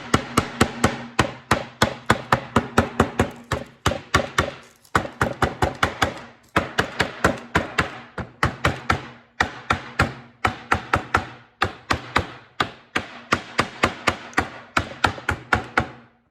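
Rapid runs of hammer taps on glued wooden wedges and segments, about four or five strikes a second with short pauses between runs: the pieces of a segmented bowl ring being knocked down flat in the glue-up.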